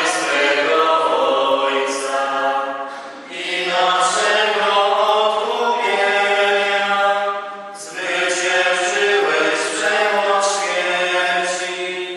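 A small group of voices singing a hymn together, in three long phrases with short breaks between them, cutting off abruptly at the end.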